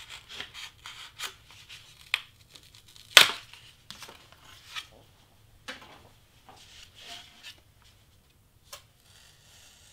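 Craft knife cutting through cardstock on a cutting mat: a run of short strokes, the sharpest about three seconds in.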